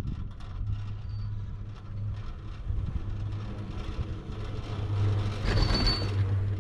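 Riding a 1993 Poma detachable high-speed quad chairlift: a steady low hum over rushing noise. About five and a half seconds in comes a louder rumble with a brief high whine.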